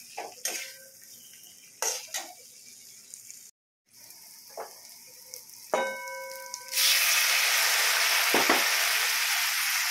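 Spatula scraping and knocking in an aluminium kadai as boiled potato pieces are stirred into fried masala. After a metal clink that rings briefly, water poured into the hot pan sizzles, a loud steady hiss from about seven seconds in.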